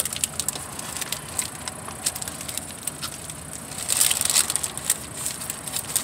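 Paper burrito wrapper crinkling and crackling as it is handled, in irregular crackles that grow louder for a moment about four seconds in.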